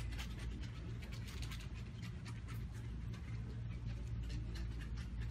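Indoor ambience of a large retail store: a steady low hum, with irregular soft crackling ticks several times a second over it.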